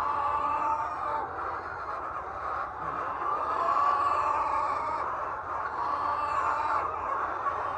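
A large flock of laying hens clucking and calling all at once, a steady, dense chatter.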